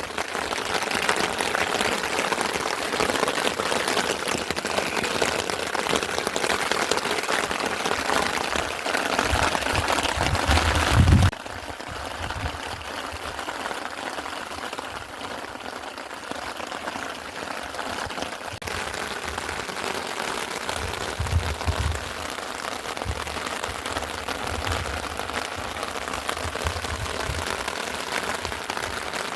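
Rain falling and pattering steadily, heavier for about the first eleven seconds, then dropping suddenly to a lighter, steady patter.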